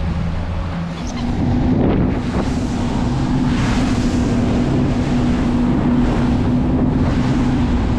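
Twin Mercury Verado 300 V8 outboards running under way, their steady note stepping up in pitch about a second in as the throttle comes up. Wind buffets the microphone and water rushes along the hull.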